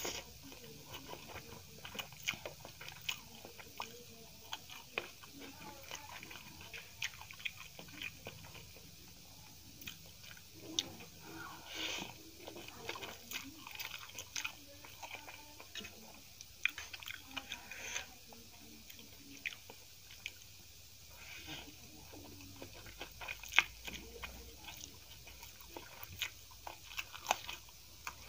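Close-miked mouth sounds of a person eating spicy instant noodles: chewing and slurping, with many short sharp clicks scattered throughout.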